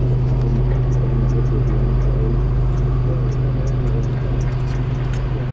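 Diesel tractor engine running steadily with a low, even drone, heard close up. It cuts off suddenly at the very end.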